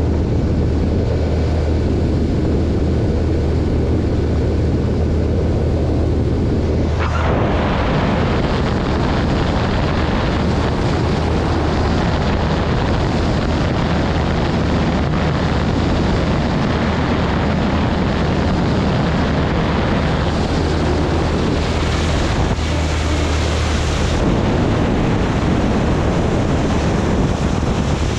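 Motorboat's outboard engine running steadily under the hull's water noise, with wind rushing on the microphone. About seven seconds in the rushing noise suddenly grows fuller and brighter.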